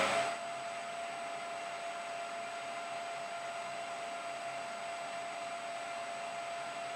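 Steady workshop hum and hiss with a faint, even high whine; no cutting or impacts.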